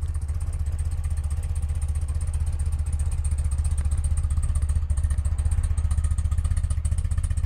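1982 BMW R100RT's air-cooled flat-twin boxer engine idling steadily with an even exhaust pulse, freshly started from ice cold.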